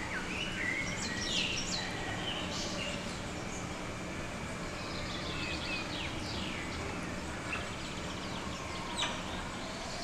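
Many short, high chirping and sweeping animal calls over a steady hiss and low hum, with one sharp click about nine seconds in.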